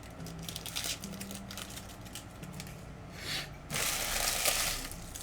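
Plastic wrapping crinkling as it is handled, in a run of small crackles, then a longer, denser rustle near the end.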